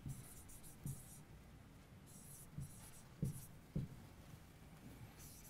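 Faint sounds of a pen writing on an interactive display board: light scratching with about five soft taps of the pen tip on the screen.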